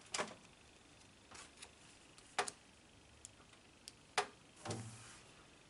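Faint, sharp clicks and taps of a small plastic game miniature and its card being handled and set down on a tabletop, several ticks spread over a few seconds.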